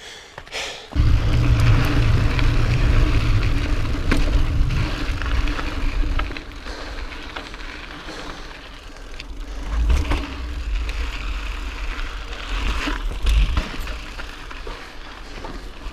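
Pivot Mach 429 Carbon mountain bike riding rocky singletrack: tyres rolling over dirt and rock and the bike rattling, with a deep rumble and a few sharp knocks. The sound is loudest for the first few seconds, eases off, and swells again twice near the end.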